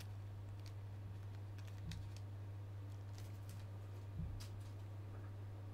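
Faint scattered clicks and taps of a small plastic action figure being turned over in the hands, with one slightly louder knock a little after four seconds, over a steady low hum.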